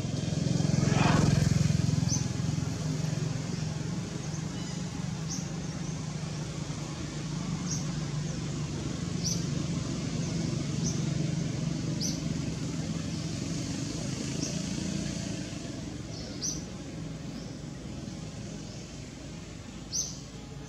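Motor vehicle engine running, swelling briefly near the start and then holding a steady low hum, with short high chirps repeating about once a second or so.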